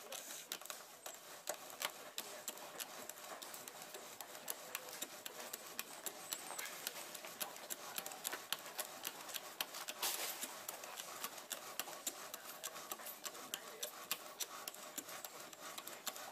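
Bow drill being worked: the wooden spindle rubbing and grinding in the fireboard as the bow is sawed back and forth, in regular strokes about three a second. The friction heats the hearth until it smokes.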